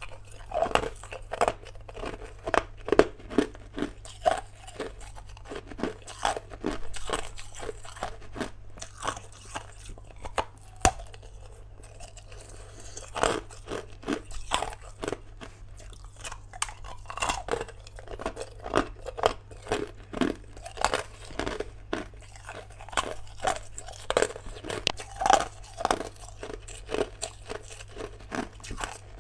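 Hard ice being bitten and chewed close to the microphone: rapid, irregular crunches with a brief lull partway through. A low steady hum runs underneath.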